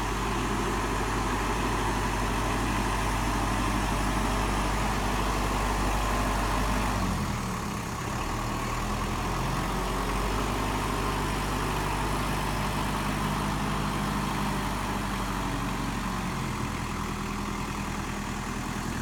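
Diesel engine of a Kubota M59 tractor-loader-backhoe running steadily. About seven seconds in, the engine speed changes and it runs on slightly lower and quieter.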